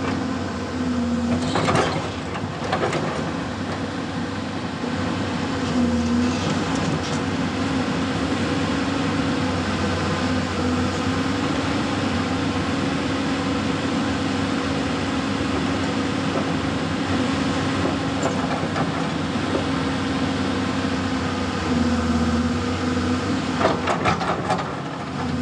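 Doosan DX200A hydraulic excavator's diesel engine running steadily while the boom and bucket are worked. The engine note dips briefly about three times, and a few knocks come near the start and near the end.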